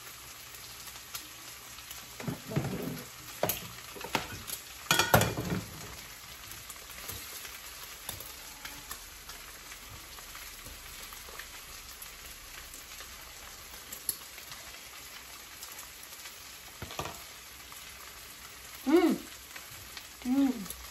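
Chopped chicken sisig sizzling steadily in a frying pan, stirred with a wooden spatula, with a few louder knocks and scrapes against the pan in the first few seconds. Near the end come two short hummed, voice-like sounds.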